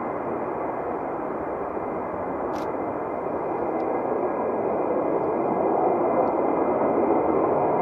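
Fighter jet engine noise, a steady rushing sound with no distinct tone, growing gradually louder over the second half.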